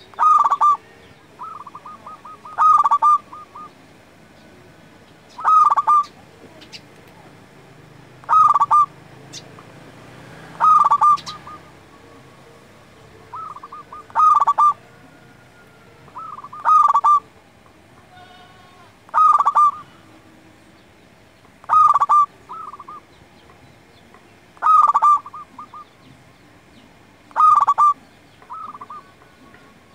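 Zebra dove (perkutut) singing its cooing song over and over, about every two and a half to three seconds. Each phrase is short: often a few quick soft notes, then a louder rolling coo.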